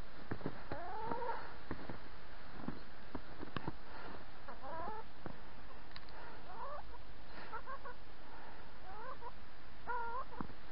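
Hens clucking: a series of short, rising-and-falling calls, one near the start and then about five more in quick succession through the second half, with a few short clicks between them.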